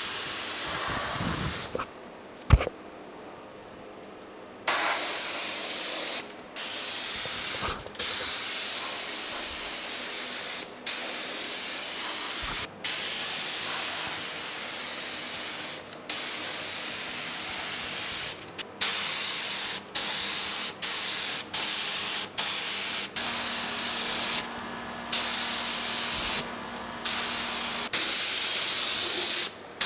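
A small touch-up spray gun on a compressed-air hose hissing as clear coat is sprayed. It comes in many bursts of one to three seconds as the trigger is pulled and released, with brief pauses between. There is a sharp click about two and a half seconds in.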